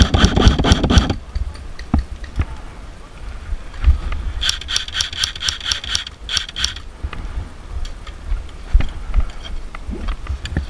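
Airsoft electric rifle firing full-auto bursts, a rapid rattle of shots over a whirring gearbox. One burst lasts about a second at the start, a longer one comes about four and a half seconds in, and a short one follows right after it.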